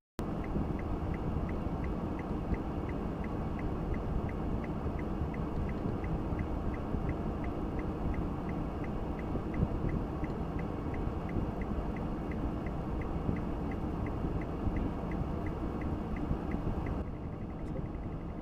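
Steady low road and engine noise of a car on the move, heard from a dash cam, with a faint regular ticking about two to three times a second. The sound changes a little near the end.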